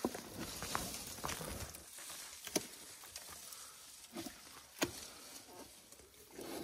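An African elephant feeding at close range, stripping bark and twigs from a small tree with its trunk and tusks: scattered sharp snaps and cracks, the two loudest about two and a half and five seconds in.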